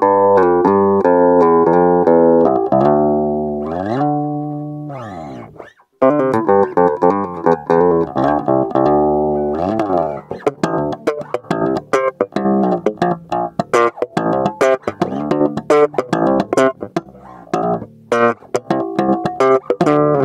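JCraft Classic R2 active four-string electric bass, with a humbucker and an onboard preamp, played direct into a sound card with no amp. It opens with ringing, sustained notes and a slide down and back up in pitch about four seconds in. After a brief break it moves to fast, short plucked notes with sharp clicks.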